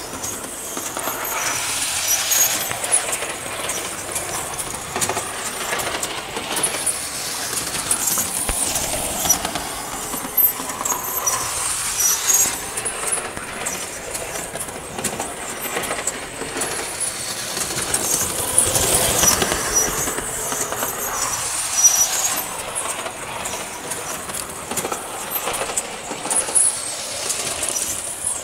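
Standard gauge model electric train running around a three-rail track oval, its motor and wheels making a continuous clatter with scattered high clicks.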